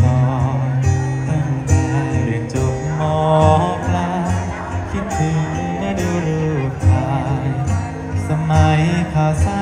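Live band music, a Thai luk thung song, with a singing voice that wavers in vibrato over a steady, repeating bass line.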